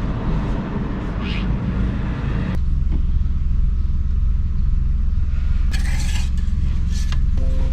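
Steady low rumble, with a brief scrape about six seconds in as the engine-oil dipstick is drawn out of its tube and wiped with a rag.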